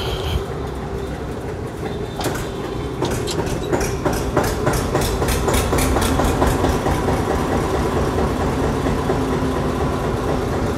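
Massey Ferguson 9500 tractor's three-cylinder diesel engine idling, with a regular ticking clatter of about three a second setting in about two seconds in.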